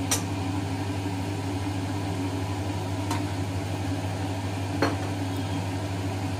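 A steady low kitchen hum, with three light clicks of sauce bottles and a steel spoon being handled beside the wok: near the start, about three seconds in and near five seconds.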